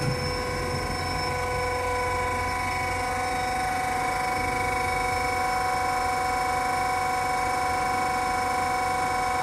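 Roll forming machine for shutter-door slide rails running: a steady, unchanging whine from its drive over an even mechanical hum.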